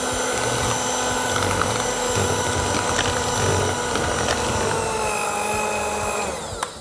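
Electric hand mixer running steadily, its beaters churning through cake batter as flour is worked in. Near the end the motor's pitch falls as it winds down, and a short click follows as it is switched off.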